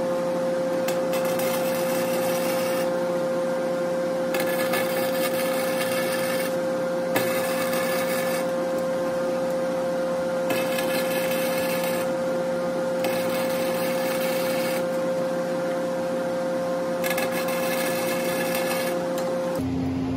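Flux-core wire welder arc crackling in runs of a second or two with short breaks between. It is laying a low-heat bead inside a stuck differential bearing race to shrink it loose. A steady hum runs underneath.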